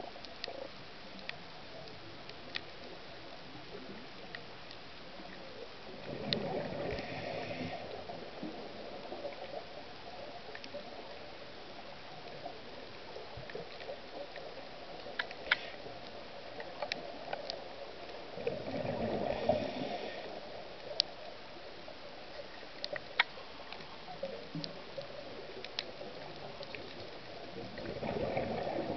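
Underwater sound of a scuba diver breathing through a regulator: a rush of bubbling exhalation three times, roughly ten to twelve seconds apart, over a faint steady hiss with scattered sharp clicks.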